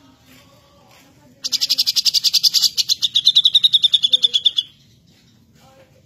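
Grey-cheeked bulbul (cucak jenggot) singing a loud, fast trill of about ten notes a second for some three seconds. The trill has a short break partway through, and its pitch drops near the end.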